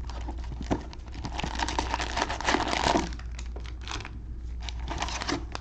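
Plastic shrink wrap crinkling and tearing as it is pulled off a sealed box of trading card packs: a dense run of crackles, busiest in the middle.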